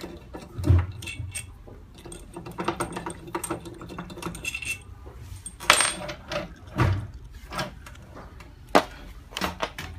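Metal parts and tools clinking and knocking as the inside of a laminating machine is taken apart by hand: an uneven run of sharp clicks, with a few louder knocks near the middle and end.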